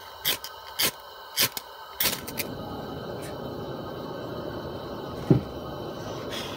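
Propane camp stove being lit: four sharp igniter clicks about half a second apart, then the gas burner catches about two seconds in and hisses steadily. A single loud thump about five seconds in.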